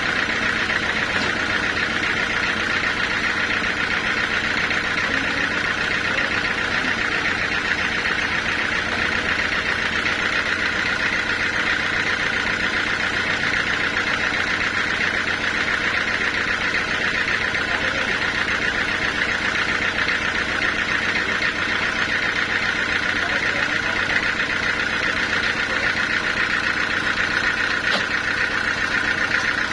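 Sawmill machinery running steadily, an even engine hum with a strong high whine over it and no breaks or changes.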